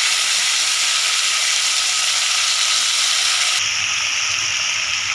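Boiled vegetables and their cooking water sizzling loudly as they hit hot oil with a tempering of mustard seeds and curry leaves in a kadai. The sizzle eases somewhat about three and a half seconds in.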